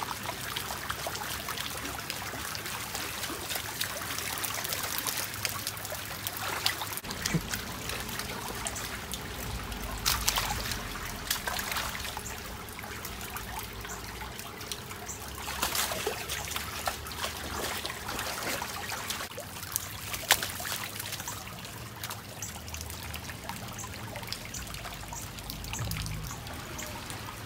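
Shallow floodwater trickling and running, with a few louder splashes as a dog wades through it.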